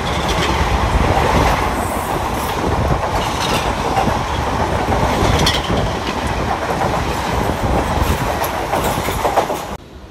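Indian Railways ICF passenger coaches passing close at speed: a continuous loud rumble with wheels clacking over rail joints at uneven intervals. The sound cuts off suddenly near the end.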